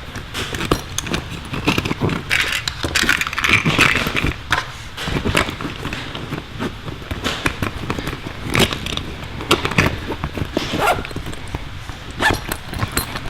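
Irregular clicks and rustling of small tools and parts being handled and rummaged in the pockets of a soft-sided tool bag.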